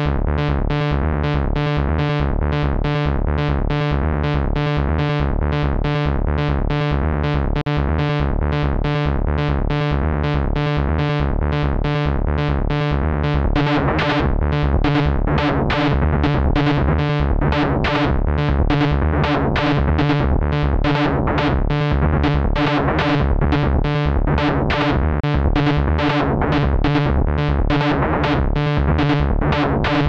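Ableton Live's Operator FM synthesizer playing a fast, evenly repeating sequence of short notes over a steady low pulse. From about halfway on, the tone grows brighter and its timbre keeps shifting: a recorded knob movement being replayed in a loop by a Memory Knob device.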